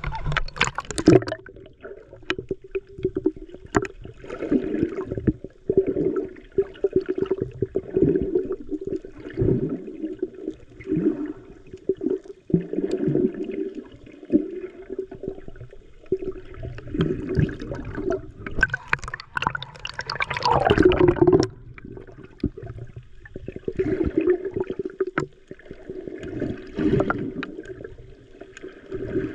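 Water gurgling and sloshing, heard muffled through a GoPro Hero 9 held underwater, in uneven surges over a steady low hum, with a louder surge a little past the middle.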